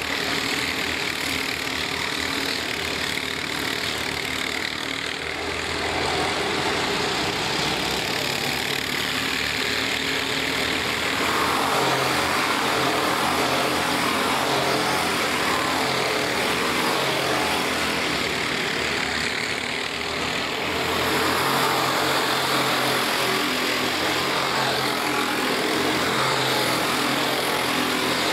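A pack of four-stroke racing karts running at speed around a circuit, a dense overlapping engine drone that grows louder about six seconds in, dips briefly near twenty seconds and swells again as the karts pass.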